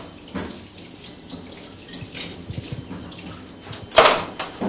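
Kitchen tap running into the sink as dishes are washed, with a few small clinks. About four seconds in there is a single sharp knock.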